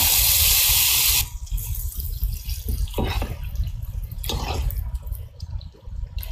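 Loud frying sizzle from mutton and vegetables in a large pan over a wood fire, cutting off abruptly about a second in; after that it is quieter, with a few short swishes of the cooking.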